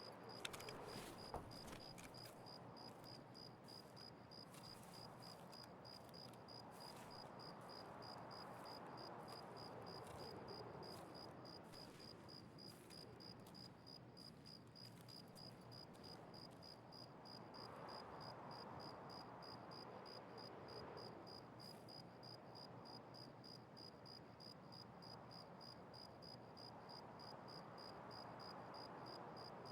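A cricket chirping steadily, about two to three high chirps a second, over a faint rushing background that swells and fades. There are a couple of small clicks in the first seconds.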